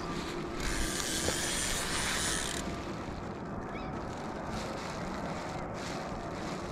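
Wind rumbling on the microphone, with a rushing hiss lasting about two seconds starting half a second in.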